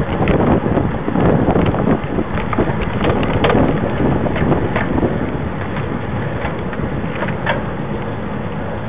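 Wind buffeting the microphone of a camera riding on a moving road bicycle, with the bike's rumble and scattered small knocks and rattles from the road surface. The noise and knocks are heavier in the first half and ease off after about five seconds.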